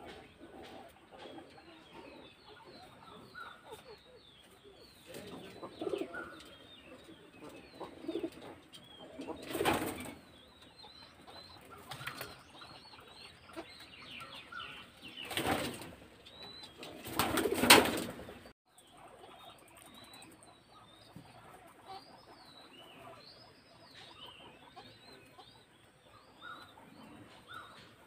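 Birds chirping in the background, many small high chirps throughout. Three louder, brief rushing noises come near the middle, the last and loudest lasting about a second.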